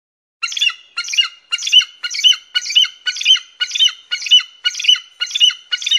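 An eagle calling: a series of about eleven short, harsh, high calls at roughly two a second, starting about half a second in.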